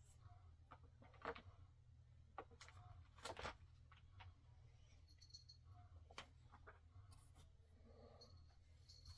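Quiet handling noise from pieces of a storage rack being fitted together: faint scattered clicks and taps, with a short scrape a little over three seconds in.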